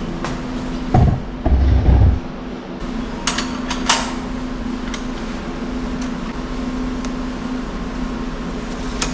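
Heavy-equipment engine running at a steady idle, with a few dull knocks in the first two seconds and two sharp clicks about three and four seconds in.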